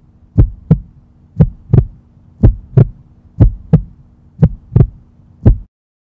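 Heartbeat sound effect: paired lub-dub thumps about once a second over a steady low hum, cutting off suddenly near the end.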